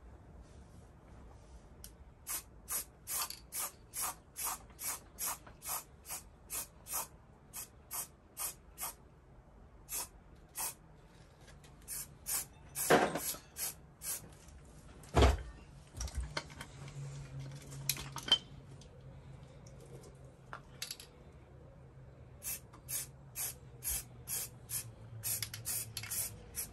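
Aerosol spray-paint can giving short spurts of paint, about two a second, in runs with pauses between them. A loud thump comes about midway.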